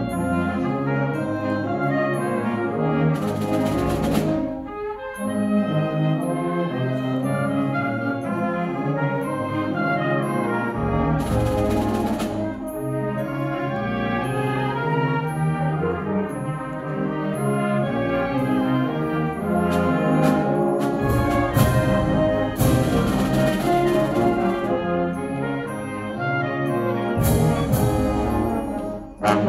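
Wind ensemble playing, brass to the fore, with several ringing crashes over the band and a brief break about five seconds in.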